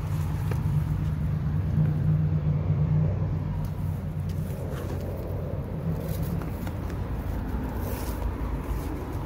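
Low, steady rumble of road traffic, swelling for a second or two about two seconds in and then easing off.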